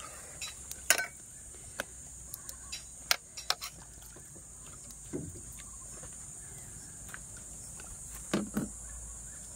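Insects buzzing steadily at a high pitch, with scattered sharp clicks and a few duller knocks; the loudest clicks come about a second in and around three seconds in.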